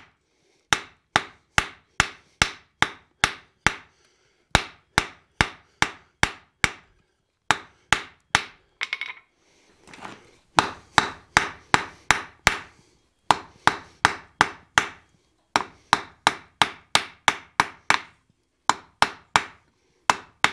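Hand hammer striking a red-hot railroad spike held in tongs on the anvil: runs of sharp blows, about two a second, broken by short pauses between runs.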